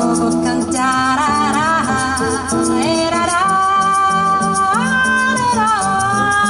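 Live band music: a female vocalist sings a Brazilian-style jazz song in long, gliding held notes over a bass line, with a steady high ticking rhythm underneath.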